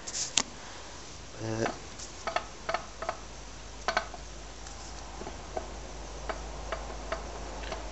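Light, irregular metallic clicks and knocks from a Wolseley WD2 stationary engine's crankshaft as it is rocked back and forth by hand: the slight play in the crank taking up.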